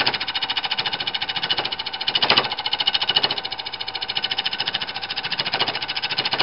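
Wood lathe running with a compound-rest cutting tool fed into a spinning wood block. It makes a rapid, even chatter of about nine beats a second, with a few louder knocks.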